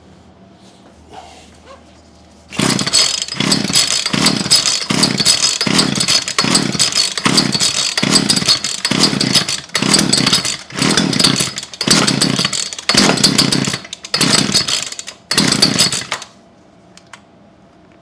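1975 Poulan Wood Shark two-stroke chainsaw engine catching about two and a half seconds in after a pull start and running unevenly, its level swelling and dipping about every 0.6 s, then cutting out near the end. It runs on a squirt of two-stroke mix in the carburetor, and the owner suspects a carburetion fault.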